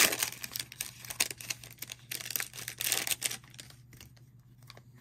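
Foil wrapper of a Panini Mosaic basketball card pack crinkling and tearing as it is ripped open, busiest over the first three seconds and thinning to faint rustling near the end.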